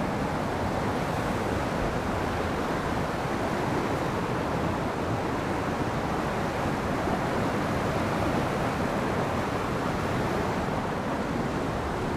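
Lousios River rushing steadily close beside a forest trail, an even, unbroken noise of flowing water.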